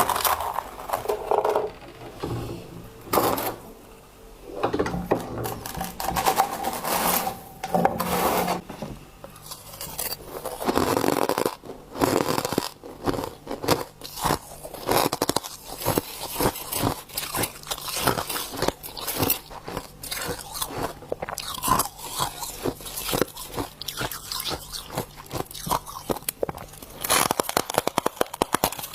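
A person biting and chewing crunchy frost ice, with quick crunches one after another that come thicker from about a third of the way in.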